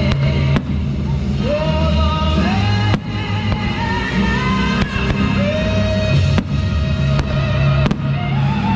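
Music with a melody over a heavy bass line, with sharp fireworks bangs breaking through at irregular intervals, about six times.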